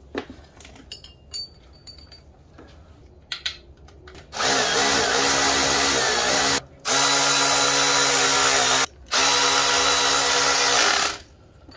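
A power tool running bolts in: a few light clicks and rattles, then three steady runs of about two seconds each at an even pitch, with short pauses between.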